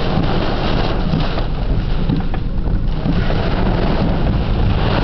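Heavy thunderstorm rain beating down on a car's roof and windows, heard from inside the car as a dense, steady noise with a deep low rumble under it.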